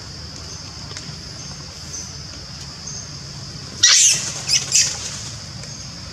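Infant long-tailed macaques squealing shrilly, one longer squeal about four seconds in and then two short ones, while they wrestle. A steady high insect drone runs underneath.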